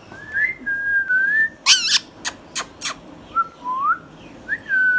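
Indian ringneck parrot whistling short gliding notes, with one harsh screech about one and a half seconds in and a few sharp chirps after it.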